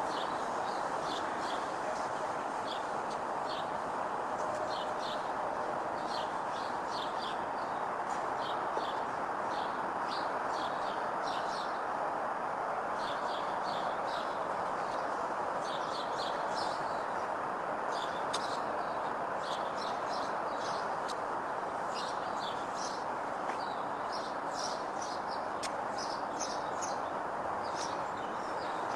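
Small birds chirping in short, repeated calls over a steady, even outdoor background noise.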